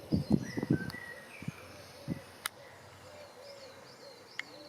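A pigeon cooing, a low call repeated over and over, with faint small-bird chirps above it. A few low thumps come in the first two seconds.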